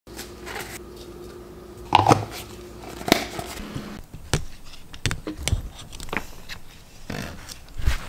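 Things being handled and knocked down on a kitchen counter over a steady low hum, with the loudest knocks about two and three seconds in. Then comes a series of irregular thuds and taps, from steps in slide sandals on a concrete floor.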